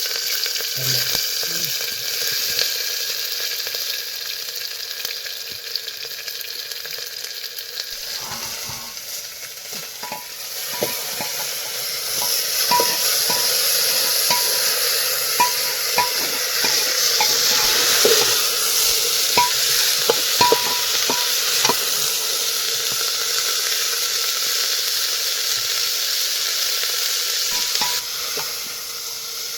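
Food sizzling in hot oil in a pan, with a steady hiss. From about ten seconds in there are scattered sharp clinks of a metal utensil stirring against the pan.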